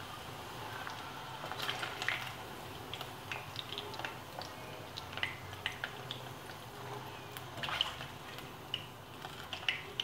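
Chicken pieces deep-frying in hot oil in a kadai, a faint sizzle with scattered crackles, while a metal slotted spatula lifts them out. Several sharper clicks and knocks come from the spatula against the pan.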